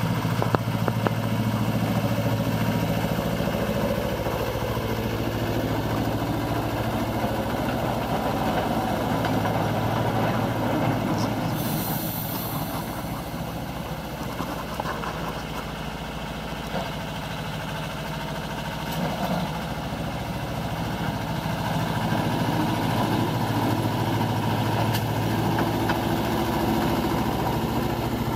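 Small Deutz narrow-gauge field-railway locomotive's engine running steadily as it hauls a train of tipper wagons along the track. It gets louder in the last several seconds as the locomotive draws close.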